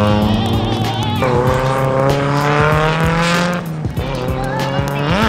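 Drift car engine revving hard, its pitch rising and falling, with a sharp rev about five seconds in, over background music.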